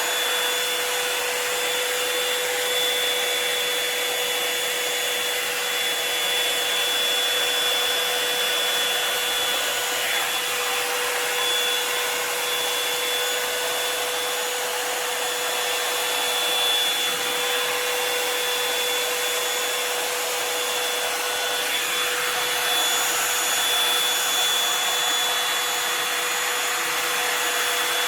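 Revlon Salon One-Step hot-air brush dryer running steadily: a very loud blowing rush with a steady whine over it.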